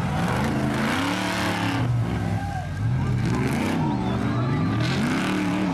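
Eight-cylinder engines of off-road 4x4 race jeeps revving hard under load in deep mud, the pitch rising and falling again and again.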